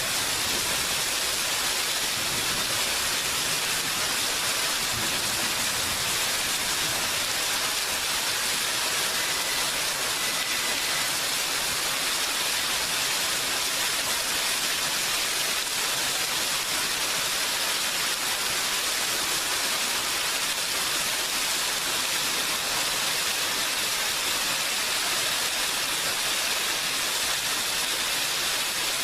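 Steady rain falling, an even hiss without a break or change.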